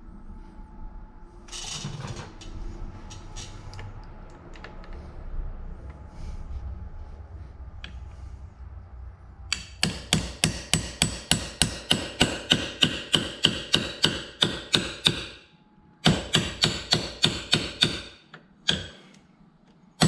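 A hammer rapidly tapping a 13 mm socket, metal on metal, to drive the old upper trim bushing out of a Mercury Optimax outboard's trim housing. After some quiet clicking from setting the socket in place, the taps begin about halfway through at about four a second, with two short pauses near the end.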